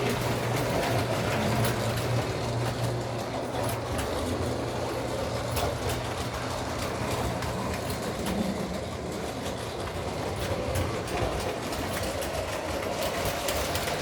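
Model train running around the layout's track: a steady electric motor hum with light, irregular clicking of the wheels over the rail joints.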